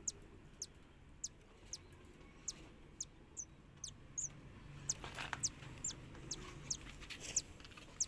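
Newly hatched cockatiel chick peeping faintly while being hand-fed: short, high, falling chirps, about two or three a second.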